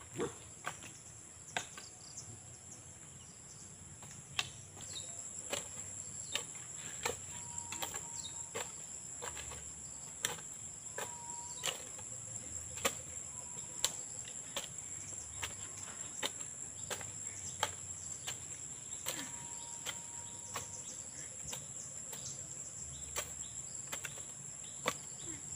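A hand hoe chopping into soil to clear weeds, irregular sharp strikes roughly once a second, over a steady high-pitched drone of insects. A few short, faint whistles come through in the middle.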